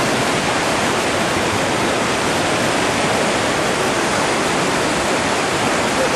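Whitewater rapids rushing, a loud, steady noise of churning water with no breaks.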